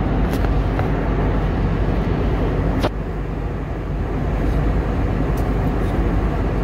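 Steady engine and air noise inside an airliner's cabin in flight, with a few faint clicks.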